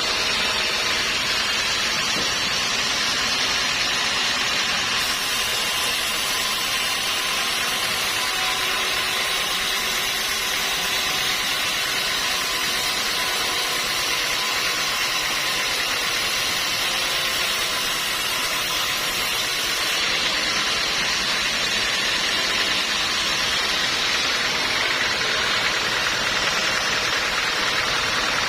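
Sawmill machinery running steadily: a constant mechanical din with a bright hiss-like edge that grows stronger from about five seconds in and eases again near twenty seconds.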